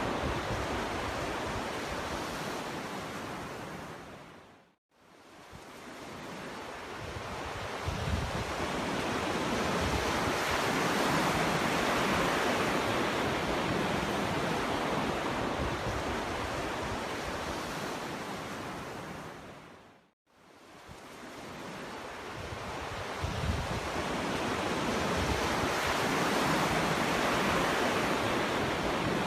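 Ocean surf: waves breaking on a beach in a continuous wash of water noise. The sound fades away to silence about five seconds in and again about twenty seconds in, each time swelling back up over several seconds.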